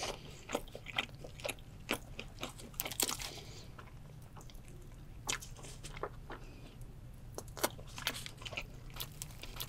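Close-miked eating: biting and chewing the grilled head of a sea bream, with many separate crunches and clicks scattered through it.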